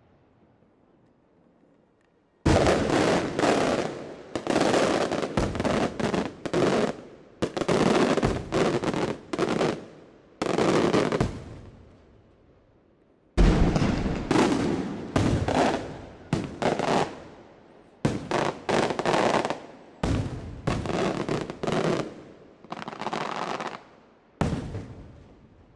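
Aerial firework shells bursting overhead: a quick run of loud bangs, each with an echoing tail, starting about two seconds in. A short lull comes near the middle, then another run of bangs.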